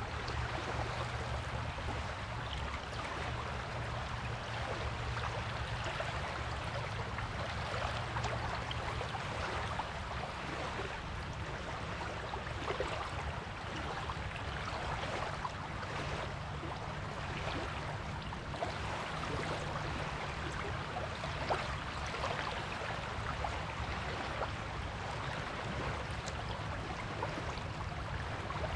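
Waves washing on a beach: a continuous wash of water with small rises and falls, over a low steady rumble.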